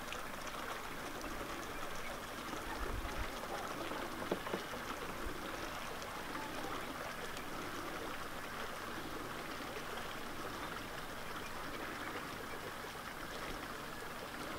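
Steady outdoor background hiss of the dry bush, with two soft knocks a little after four seconds in.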